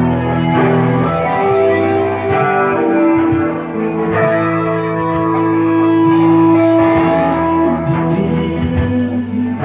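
Guitar playing long, ringing notes, with one note held from about three seconds in to nearly eight seconds.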